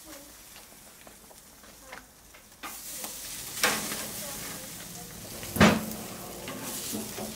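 Marinated lamb steaks sizzling on a hot grill grate. The sizzle starts suddenly a little under three seconds in, with two sharp clacks over it, the second one louder.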